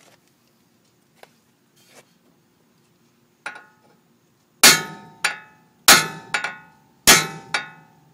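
Hammer striking a steel wheel stud in a Nissan's wheel hub to drive the old stud out. A single light tap comes first, then hard blows about a second apart, each followed by a lighter one, every strike ringing metallically.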